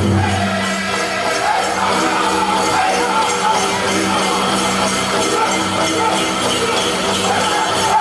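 Powwow drum group singing a chicken dance song in unison over a steady drumbeat, with jingling bells through it.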